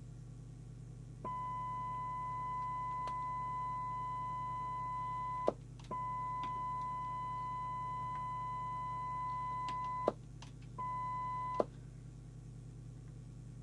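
A steady, single-pitched test tone from a signal generator, received by a Skiptech TI4000FM FM CB radio and played through its speaker. It comes in about a second in, and each time the squelch shuts it cuts off with a click: twice in the middle and once, for good, near the end. This is the squelch opening and closing as the squelch preset is adjusted. A low steady hum lies underneath.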